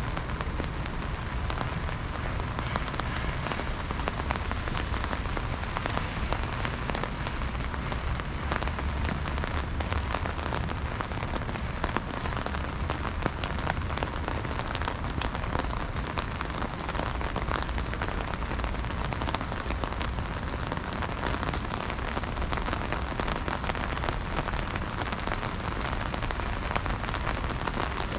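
Heavy rain falling steadily, with many sharp ticks of drops striking close by and a low rumble underneath.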